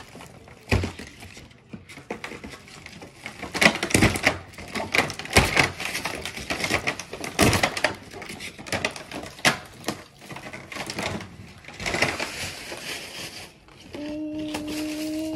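Toy packaging being rummaged through by hand: irregular crinkling, rustling and sharp knocks. A short steady hum begins near the end.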